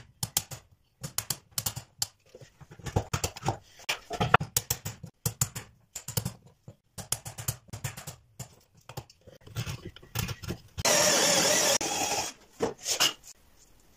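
Hammer striking a chisel again and again, chopping a mortise into wood, in irregular sharp knocks. Near the end a cordless drill runs for about a second, boring into a board.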